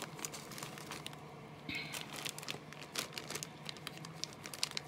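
Clear plastic zip-top bag crinkling as a handful of gel pens is handled inside it, with scattered light clicks of the plastic pens knocking together.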